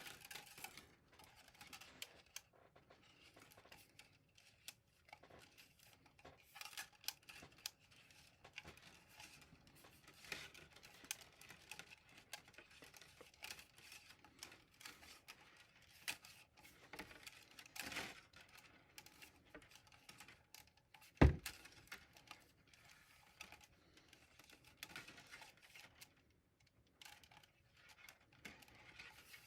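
Faint handling noises of 3D printer filament being wound by hand onto an empty spool: scattered light clicks and rustles, with one sharper knock about two-thirds of the way through.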